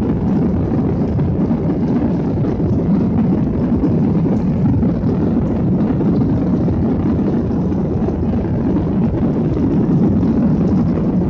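Jet airliner heard from inside the passenger cabin during takeoff: engine and airflow noise as a steady, loud low rumble.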